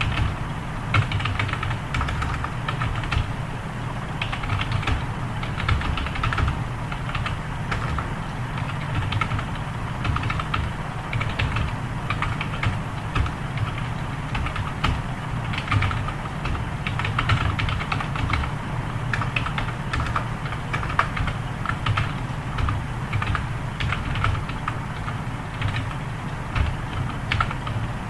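Fast, continuous typing on a computer keyboard during a timed typing test: rapid irregular key clicks with no pauses, over a low steady hum.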